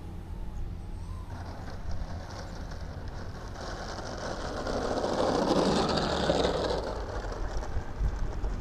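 Motors and propellers of a twin-propeller RC scale model of the N250 airliner at takeoff power. The sound swells loud as the plane passes close, about halfway through, then fades. Wind rumbles on the microphone throughout.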